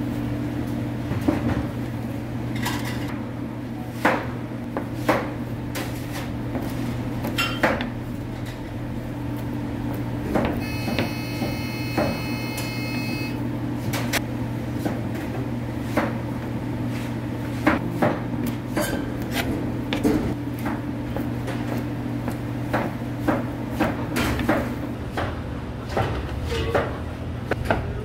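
Restaurant clatter: scattered sharp knocks of dishes and utensils being handled, over a steady low machine hum. About ten seconds in, a high electronic-sounding tone with several pitches sounds for about three seconds.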